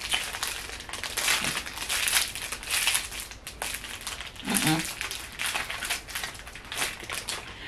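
Crinkly plastic packaging sleeve being handled and pulled off a makeup brush, in irregular rustles and crackles.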